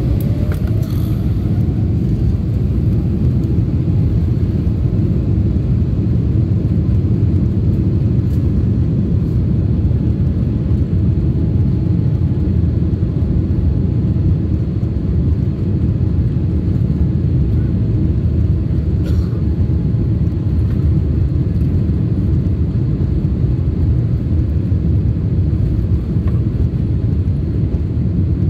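Jet airliner engines and airframe heard from inside the cabin as a steady low rumble while the plane moves on the ground. An engine tone rises in pitch over the first few seconds.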